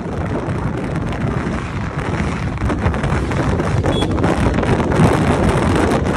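Wind buffeting the microphone of a motorcycle on the move, with engine and road noise underneath, growing a little louder after a couple of seconds.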